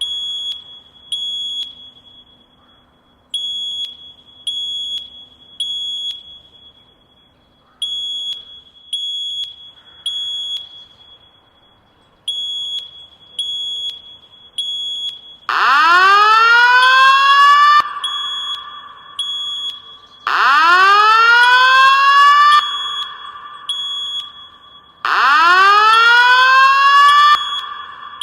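Fire alarm evacuation tones. A high beep sounds in groups of three with pauses between, the temporal-three evacuation pattern. About halfway through, a much louder rising whoop joins in three times, alternating with the beeps.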